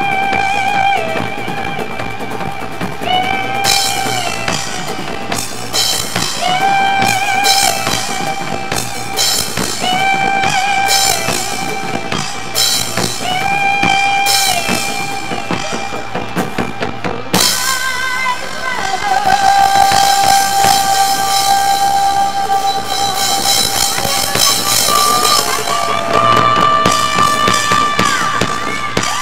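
Live band music: a woman sings short repeated melodic phrases over drum kit and hand percussion, with cymbals crashing. A little over halfway through, the band opens into a fuller, louder passage with a long held sung note.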